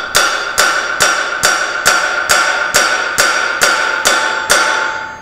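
Hammer beating steadily on a cold chisel, about two blows a second with a metallic ring after each, driving the chisel into the rusted seam of a KUKA robot's metal housing to crack it apart. The blows stop near the end.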